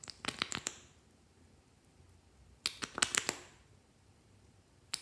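Small plastic clicks and taps from handling a toy nail polish bottle and its fruit-shaped screw cap, in three quick bursts of several clicks: at the start, about three seconds in, and at the very end.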